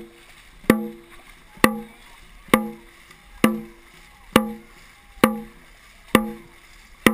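Dragon boat drum beaten in a steady rhythm, a hit a little under once a second, each one booming with a short pitched ring. The beat sets the paddlers' stroke rate. Faint water noise lies between the hits.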